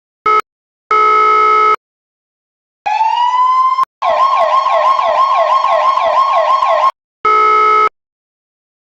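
Electronic emergency-vehicle siren switching between tones. First come short bursts of a steady, buzzy horn tone; about three seconds in, a wail rises and cuts off. A fast yelp follows, warbling about three times a second for roughly three seconds, then the buzzy horn tone comes in again. Each tone starts and stops abruptly.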